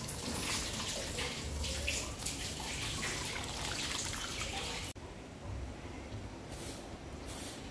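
Water sloshing and splashing in a metal bowl as hands swish leaves through it and lift handfuls out, dripping back into the bowl. About five seconds in the sound drops abruptly to quieter, scattered splashes.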